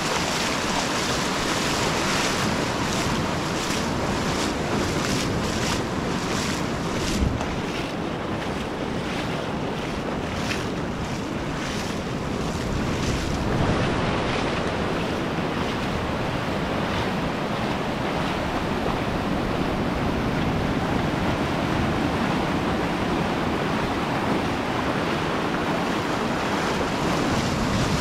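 Ocean surf breaking and shallow waves washing up over the sand, with wind buffeting the microphone; one brief thump about seven seconds in.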